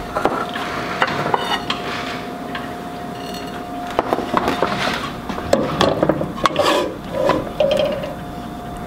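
Serving spoon scraping and clinking against a pan and plates as food is dished out, in scattered scrapes and light knocks over a faint steady hum.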